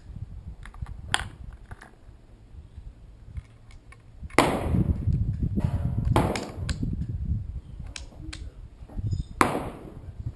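Gunshots at a shooting range: a faint crack about a second in, then three loud shots, each followed by a fading echo, in the second half. Wind buffets the microphone throughout as a low rumble.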